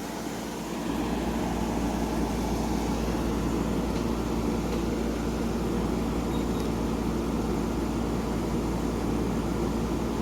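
Hampton Bay 10,000 BTU window air conditioner running, with a steady compressor hum under the whoosh of its fan. Just under a second in, the noise steps up louder and a low rumble joins it, holding steady after that.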